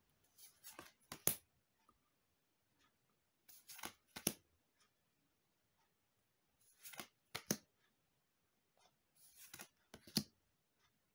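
Magic: The Gathering cards being moved one at a time from the back to the front of a hand-held stack. Four short rustles come about three seconds apart, each ending in a sharp card snap.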